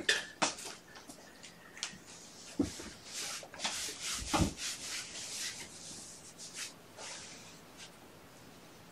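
Irregular rubbing and scratching strokes, with two soft thumps a couple of seconds apart, dying away near the end.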